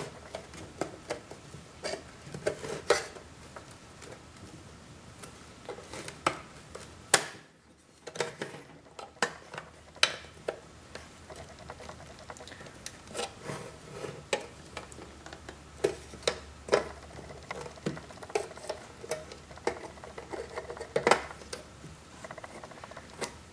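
Pliers clicking and scraping on the thin steel tabs of a Bosch Motronic engine computer's cover as the tabs are bent straight: scattered sharp metal clicks at uneven intervals, with a short lull about eight seconds in.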